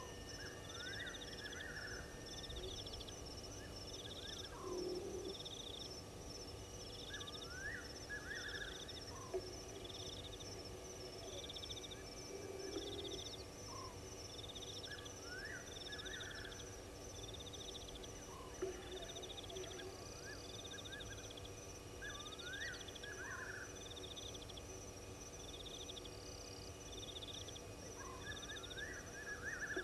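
Night chorus of insects and frogs at a waterhole: a steady high insect trill, a chirp repeating about every second and a half, short rising calls every few seconds, and a few low croaks.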